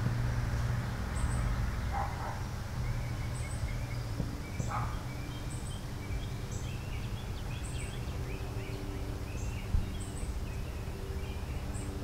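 Outdoor ambience of birds singing: a short high chirp repeats about once a second, with warbling calls joining after a few seconds, over a steady low hum.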